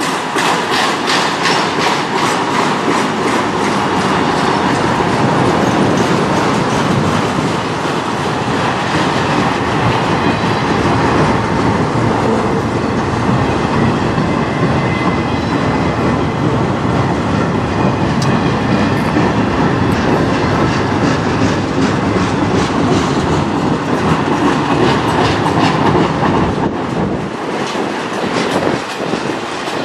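Freight train of autorack cars rolling past at close range: a steady rumble of steel wheels on rail, with repeated clickety-clack as wheel sets cross the rail joints, most distinct near the start and again near the end.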